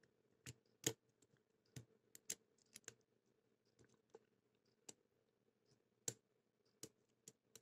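Faint, irregular clicks of a lock pick and tension wrench working the pins inside a pin-tumbler padlock.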